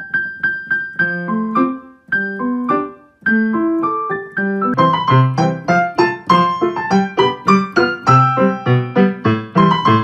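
Background piano music: a few single notes at a slow pace, then a quicker, busier run of notes from about halfway through.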